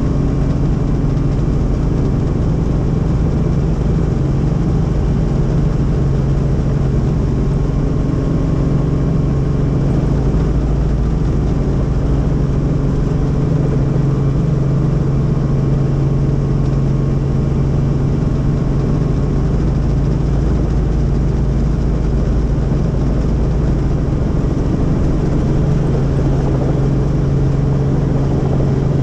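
Helicopter's engine and rotor running steadily, a constant heavy drone with a low hum.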